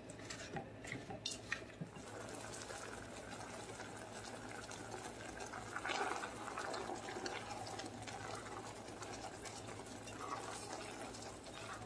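Sliced apples simmering in a pot of sugar, water and butter: a soft, steady bubbling with small pops, swelling a little about six seconds in.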